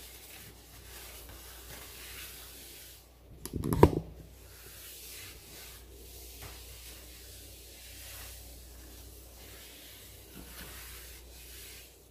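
Dishes being washed by hand: a brief clatter of dishes knocking together about four seconds in, over a steady faint hiss.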